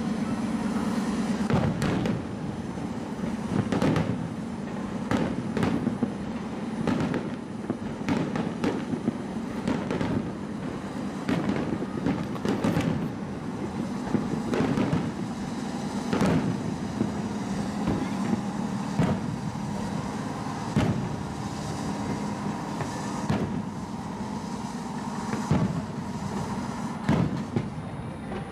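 Aerial fireworks bursting in an irregular string of bangs, at times several a second, during the finale of a large fireworks display, over a steady low hum.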